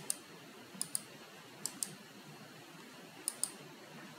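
Computer mouse clicking: four quick double clicks, a second or so apart, faint over steady room hiss.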